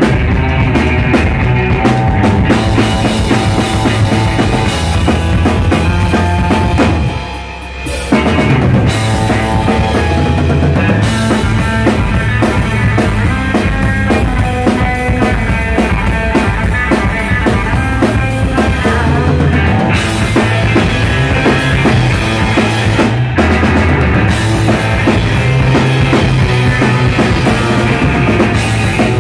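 Rock band playing live: drum kit, electric bass and electric guitar, loud and dense. About seven seconds in the band drops out briefly for about a second, then comes back in at full volume.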